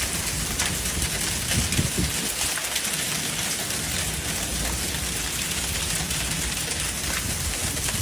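Heavy rain pouring down in a steady, dense hiss, with a constant patter of drops striking surfaces.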